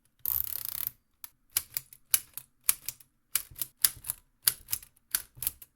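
Wooden model typewriter (ROKR LK703B kit of wood, plastic and metal parts) being typed on: a brief rattle at the start, then a run of clacking keystrokes, each a quick double or triple click, a little under two a second.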